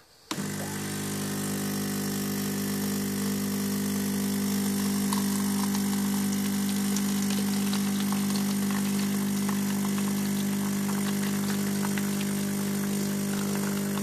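DeLonghi EC220 espresso machine's vibratory pump buzzing steadily at 15 bars while it pulls a double espresso shot; the buzz starts just after the brew knob is turned.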